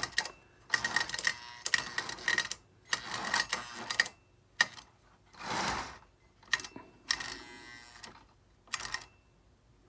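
Pre-war Lionel 1688E Torpedo toy train locomotive's electric motor buzzing and its wheels rattling on the track in short stop-start spurts, about a dozen, cutting out between them: the locomotive is not picking up steady power, a bad electrical connection.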